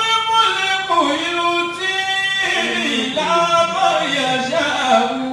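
A man's voice chanting a melodic Islamic sermon into a microphone, holding long notes that step up and down in pitch without a break.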